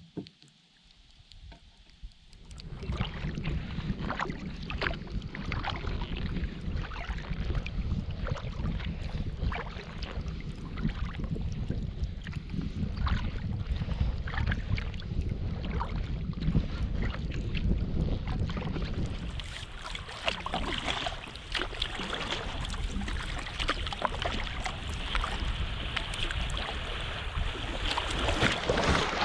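Water splashing and rushing around a kayak being paddled on a river, with many irregular small splashes and wind rumbling on the microphone. It starts about two seconds in and grows brighter and more hissing about two-thirds of the way through.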